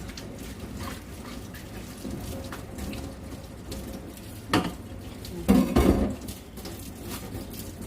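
Knife knocking on a cutting board as an onion is cut open: one sharp knock about four and a half seconds in, then a quick cluster of knocks and clatter about a second later, over a steady low hiss like running tap water.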